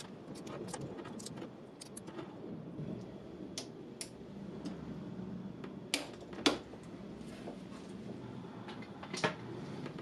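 Torque wrench set to 30 newton metres tightening a scooter's steel fork clamp bolts: light ratcheting ticks, then two sharp metallic clicks about six seconds in and another near the end.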